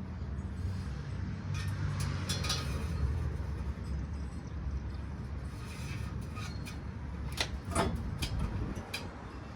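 Stainless-steel long-tube exhaust header being worked into a car's engine bay: scattered metal clinks and knocks as the tubes bump against the chassis and engine, with a brief squealing scrape near the end.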